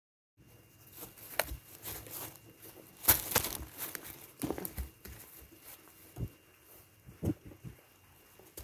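Young goats shuffling about in the pen bedding right by the microphone: rustling and crinkling with scattered soft knocks, loudest a little after three seconds in.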